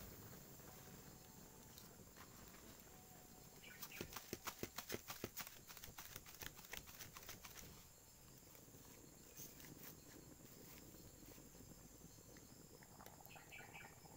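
A quick run of dry crackling snaps lasting about four seconds, from dry twigs and leaf litter being handled beside a small wood cooking fire.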